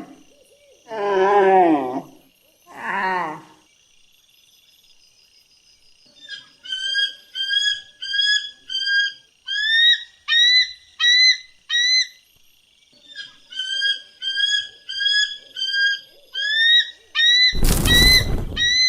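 Animal calls: two low, falling growl-like calls in the first three seconds, then a long series of short, clear chirping calls, about two a second, in two bouts. A loud burst of noise comes near the end.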